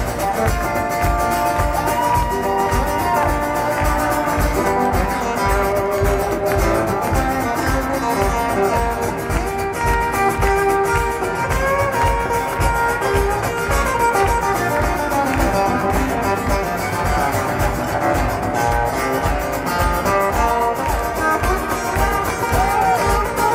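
Live band playing a guitar solo over a steady drum beat.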